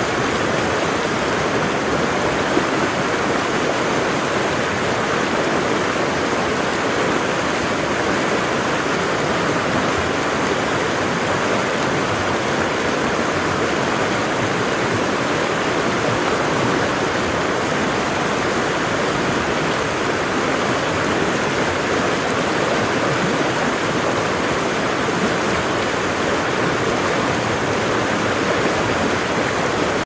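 Wide, low waterfall: water pouring over a broad rock ledge into a river, a steady, even rush without breaks.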